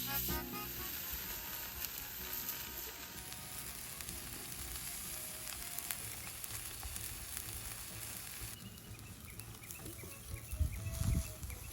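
Food sizzling as it fries, a steady fine crackle, with a few louder knocks near the end.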